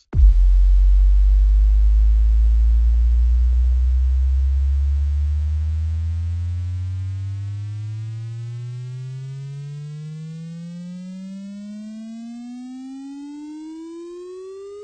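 An electronic buzzy tone that starts very low and glides slowly and steadily upward in pitch, growing quieter as it rises.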